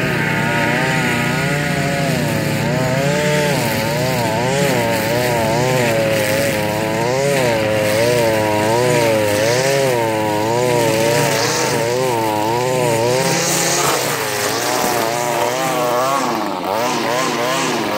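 Small gasoline engine running, its pitch swinging up and down a little more than once a second. In the last few seconds the swings turn quicker and less even.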